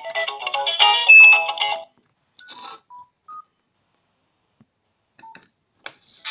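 A ringtone melody plays from a basic mobile phone's small speaker and is cut off about two seconds in. Then come a few short key beeps and button clicks as the phones' keypads are pressed, and another ringtone starts right at the end.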